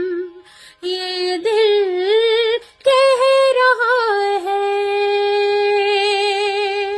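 A woman singing unaccompanied, with no words: a short wavering phrase, a brief break, then a phrase that settles into one long held note.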